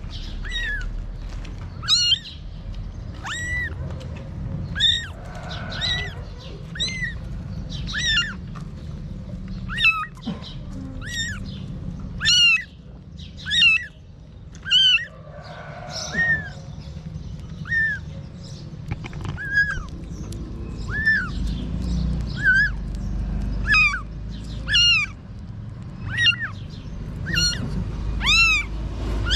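Lost newborn kitten mewing over and over, short high-pitched cries about once a second, each rising and falling in pitch.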